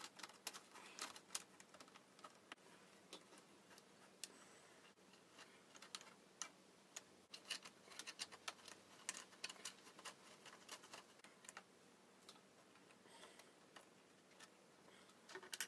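Faint, scattered clicks and taps of small homemade screw clamps, bolts with hardwood nuts, being fitted against a model ship's wooden frames and tightened by hand to hold a plank, coming in clusters near the start, through the middle and near the end.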